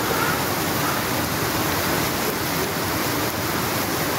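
Muddy floodwater rushing down a flooded street, a steady, unbroken rush of water.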